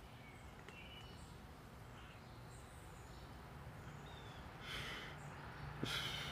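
Faint outdoor background with a few short, high bird chirps, and two brief hissing sounds near the end.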